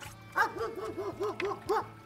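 German Shepherd barking aggressively in a quick run of about nine barks, the territorial barking of a guard dog.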